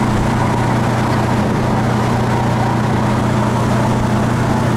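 Passenger motor boat's engine running steadily under way, a constant low drone, with the rush of water from the wake along the hull.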